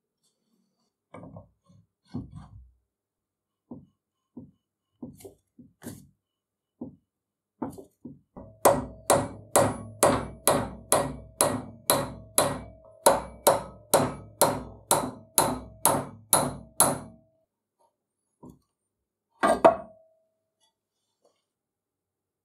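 Hammer blows on an aluminium punch driving the rusty toothed rack (ram) out of a cast-iron arbor press head: a few light knocks, then a steady run of loud strikes, about two to three a second for some eight seconds, each with a short metallic ring, and one last hard blow near the end.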